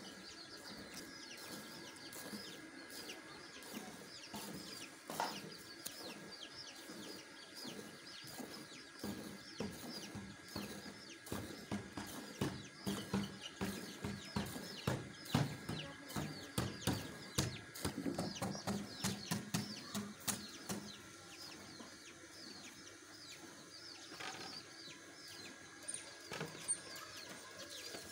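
Milk squirting from a cow's teats into a steel bucket during hand milking, in rhythmic strokes about two a second that are loudest in the middle stretch and fade toward the end. Chickens cluck in the background.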